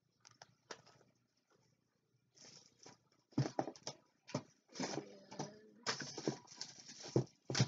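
Cardboard shipping box and boxed dolls in plastic-windowed packaging being rummaged through: irregular rustling and crackling, a few light rustles at first, then a busier run of crackles from about three seconds in.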